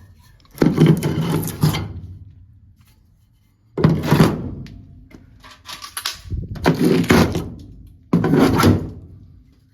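Loud clattering bangs of sheet metal as the old indoor coil is worked out of the air handler: four separate bursts, each starting sharply and fading over about a second.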